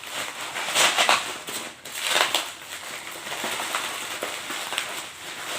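Plastic packaging crinkling and crackling as it is handled and pulled off a baby bowl, with two louder bursts of crackle near the start.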